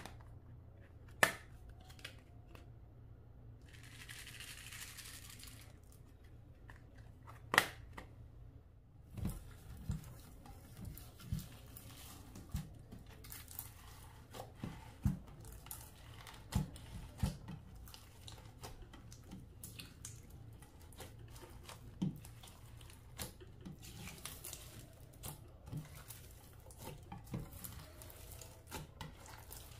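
Clear slime being mixed and pressed by hand, giving many small sticky pops and clicks. Near the start there are two sharp snaps and a short burst of crinkling.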